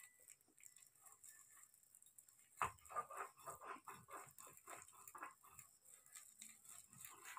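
Faint, squishy scraping of a ripe palmyra palm fruit being rubbed over an upturned woven bamboo basket to press out its pulp, a quick run of strokes starting about two and a half seconds in, then slower and sparser.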